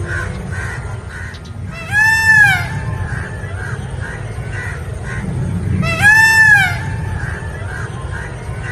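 A bird giving two loud, honking calls about four seconds apart, each one rising and then falling in pitch, over softer chirps repeating a few times a second and a low rumble.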